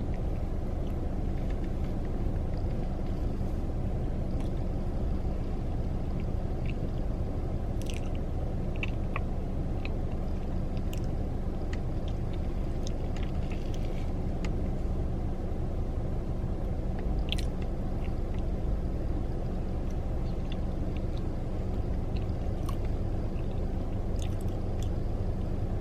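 Quiet chewing of pumpkin cheesecake, with scattered small mouth and fork clicks, over a steady low rumble.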